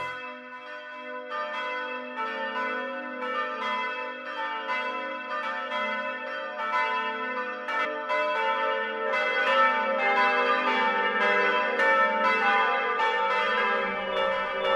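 Church tower bells pealing: several bells ring together in overlapping strikes over their lingering hum. The strikes begin about a second in and grow louder.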